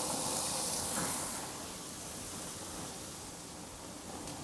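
Bratwurst and cheddar-filled tortilla wraps sizzling on a hot gas grill: a steady hiss.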